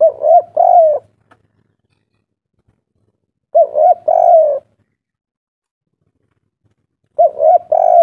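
Spotted dove cooing its three-note 'kuk 3' song three times, about every three and a half seconds: each phrase is two short coos followed by a longer, drawn-out one.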